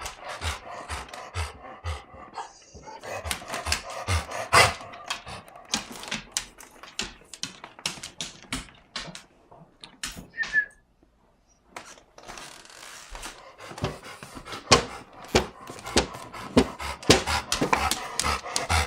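Golden retriever panting rapidly: a warm-weather breathing problem that the owner suspects is allergies or laryngeal paralysis. The panting stops for about two seconds around the middle, then starts again louder.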